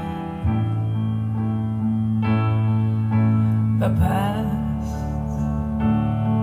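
Music played back through Jennings Research Contrara Pedestal MK1 floor-standing loudspeakers: held keyboard chords over a steady bass line, changing every second or two.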